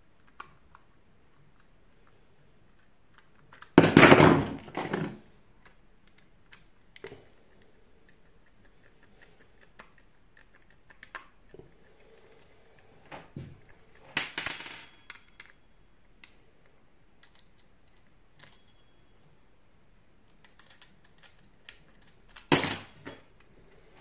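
Screwdriver working on a small motor unit taken from a microwave oven, with small clicks and the clink and clatter of metal screws and parts on a desk. There are louder clatters about four seconds in, around the middle and near the end.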